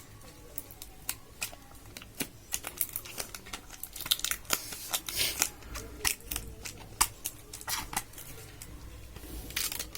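Thin plastic sheet being peeled off a laptop hard-drive caddy and crinkled by hand: irregular crackling and crinkling with sharp clicks, busiest in the middle.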